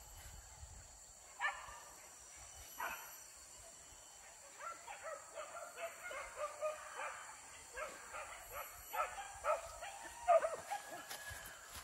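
Hunting dogs yelping and baying in full chase: a couple of single yelps, then a rapid, overlapping run of yelps from about four seconds in, louder near the end.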